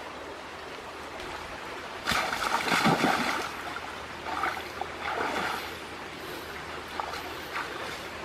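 Water splashing and sloshing as a person wades and reaches into a shallow, muddy river at the bank. The splashing is loudest about two seconds in, with a few smaller splashes after, over the steady rush of the flowing river.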